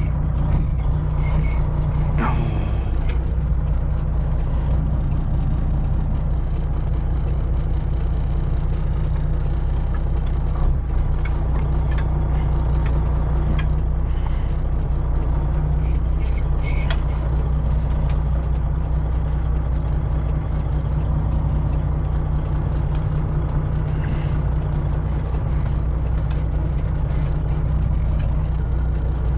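Semi truck's diesel engine idling steadily as the rig creeps backwards into a loading dock, with a few faint clicks.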